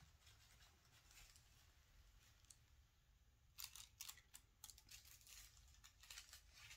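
Faint crinkling of a cat wand toy's shiny foil streamers as the toy is moved, a quick cluster of crackles starting about halfway through, with near silence before it.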